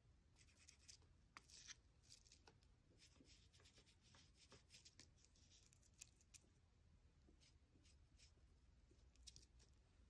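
Faint, irregular scratching of a black oil pastel stick being stroked over a paper drawing, with a few soft taps.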